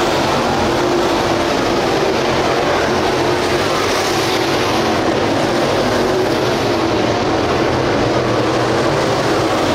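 Dirt late model race cars' 602 crate V8 engines running hard around the dirt oval, a loud, steady engine noise with no break.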